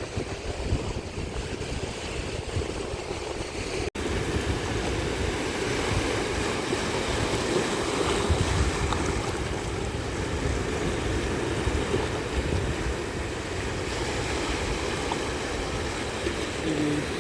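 Ocean waves washing onto a beach, with wind buffeting the microphone.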